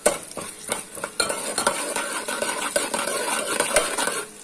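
A steel spoon stirring and scraping a tempering of chana dal, urad dal and cumin seeds in hot oil in a steel pot, with metal clinks against the pot and the oil sizzling. A sharp clink comes right at the start, and the stirring is busiest from about a second in.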